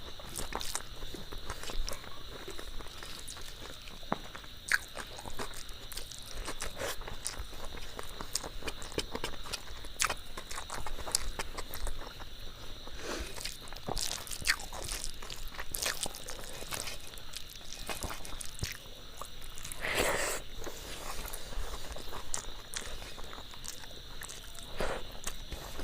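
Close-up eating sounds: chewing, biting and small crunches of a person eating a rice-and-curry meal, with scattered wet clicks. A faint steady high whine runs underneath.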